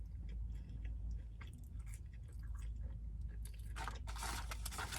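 A person chewing fast food close to the microphone, with small crunches and mouth clicks, and a louder crunch or rustle about four seconds in.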